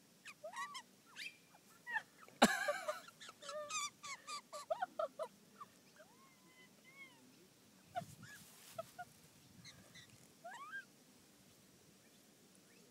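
A magpie giving a series of short chirps and squeaky calls while being held and petted, with one loud harsh squawk about two and a half seconds in; the calls thin out and fade toward the end.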